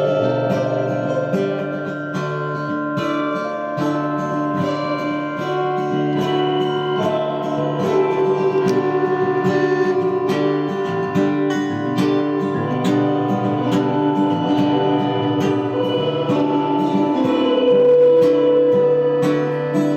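Instrumental music of plucked guitar notes over a steady low sustained tone, with no singing.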